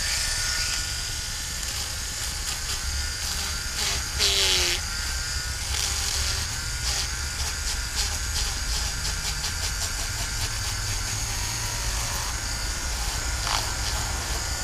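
12-volt electric fish scaler running with a steady high buzz as its spinning head scrapes the scales off a fish, with a run of rapid ticks in the middle.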